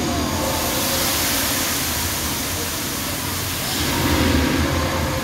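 Rushing noise of a giant swing amusement ride as its arm carrying the riders swings past, swelling at the start and again about four seconds in.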